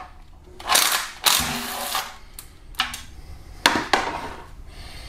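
Cordless driver with a 10 mm socket spinning out oil pan bolts in several short runs of motor whirring. Clicks of the tool and socket come between the runs.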